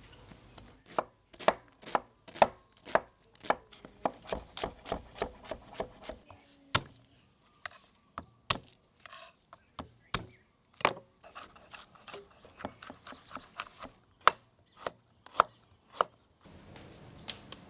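Chef's knife chopping through onion, then garlic and ginger, on a wooden cutting board: crisp knocks of the blade on the board, at first about two a second, then quicker and irregular. The chopping stops near the end.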